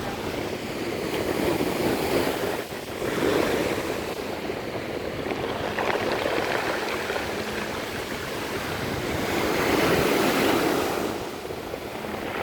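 Sea waves washing over a pebble beach, the pebbles rattling as the water surges and draws back. The sound swells and ebbs in several waves, the loudest near the end.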